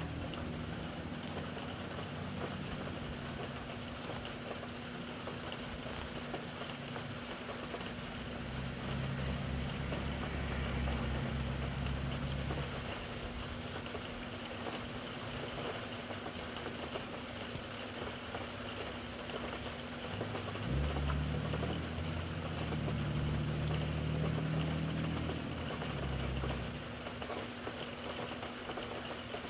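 Steady rain falling, with a faint steady low hum behind it. Two long low rumbles come and go, one starting about eight seconds in and another about twenty-one seconds in.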